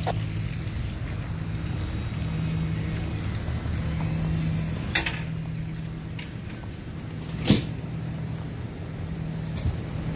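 Steady low drone of an idling diesel fire engine, with a few sharp knocks, the loudest about seven and a half seconds in.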